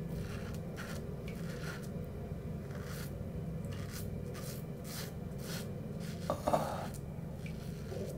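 Double-edge safety razor with a fresh Derby blade scraping through lathered stubble on the cheek and neck in a run of short strokes, with one louder rasp about six seconds in, over a steady low hum.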